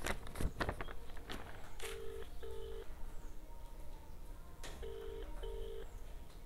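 Phone ringback tone over the phone's loudspeaker: a low double ring, two short tones in quick succession, heard twice about three seconds apart. It is the sound of the called phone ringing before anyone answers. A few clicks near the start.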